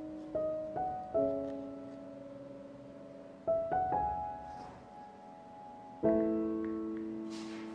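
Slow, soft solo piano background music: single notes and chords struck a few at a time, each left to ring and die away. New chords enter about half a second in, around three and a half seconds in, and again near six seconds.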